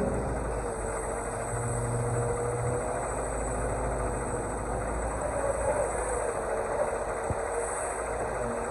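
Excavator's diesel engine running steadily, with a slightly wavering whine above the engine drone.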